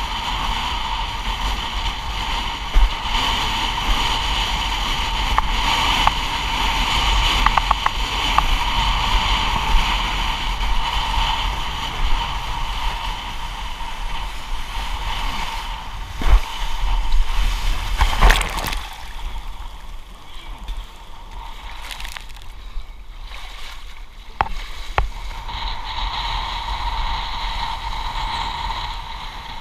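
Wind on the microphone and water rushing past a windsurf board planing fast through a rough, windy sea. A few sharp knocks and splashes come a little past halfway, then the rush drops for a few seconds before building again.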